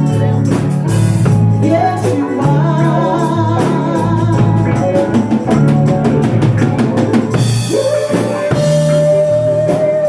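Live band music: drum kit, bass and guitar playing, with a long held high note, sung or played, from about seven and a half seconds in.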